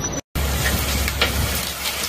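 Storm of heavy rain and hail pelting down: a dense hiss with a few sharper hits, over wind rumbling on the microphone. The sound cuts out for a split second just after it begins.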